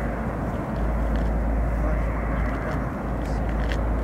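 Steady, even roar of a heavy cargo jet's engines, with a deep rumble underneath.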